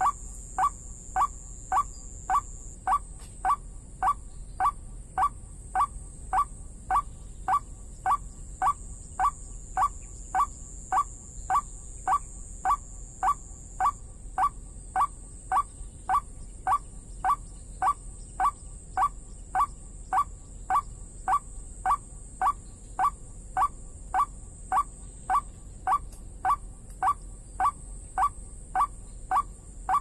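A bird-call lure plays a single short note over and over, about twice a second, with machine-like evenness. Each note rises slightly in pitch. It is a recorded waterbird call played to draw birds into hanging snares.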